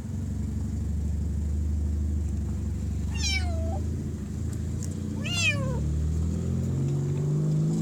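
A kitten trapped deep in a pipe meowing twice, each call under a second long and falling in pitch, over a steady low rumble.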